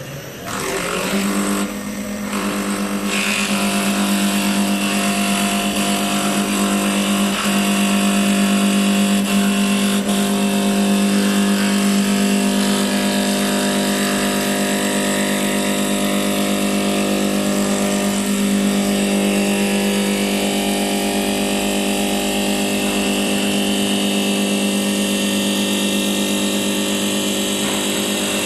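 1020 mini CNC wood lathe running: a steady motor hum starting about a second in, with a hiss over it and a faint whine slowly rising in pitch in the second half.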